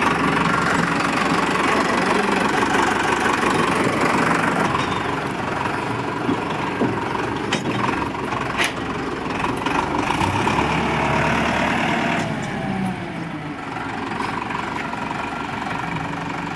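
An engine running steadily, with a few sharp clicks partway through. It drops back to a lower, quieter note about twelve seconds in.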